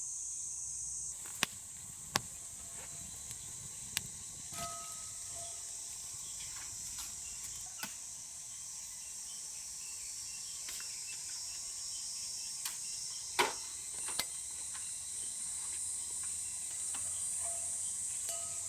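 Steady high-pitched chorus of insects, with scattered sharp pops and crackles from a wood campfire, the loudest pop about two-thirds of the way through.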